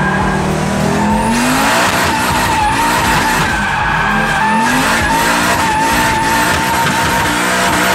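Car drifting: the engine revs hard, its pitch rising and falling several times, over a steady, wavering tyre squeal and the hiss of spinning tyres.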